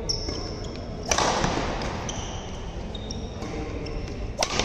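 Badminton racket strikes on the shuttlecock during a rally, a sharp crack about a second in that echoes through the hall and another near the end. Short high squeaks of shoes on the court come between the hits.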